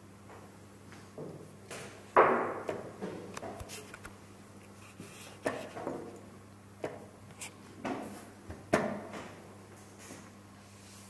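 Wooden chess pieces set down, slid and knocked on the board, with the buttons of a digital chess clock pressed between moves: a run of sharp clacks in quick succession, the loudest about two seconds in and about nine seconds in.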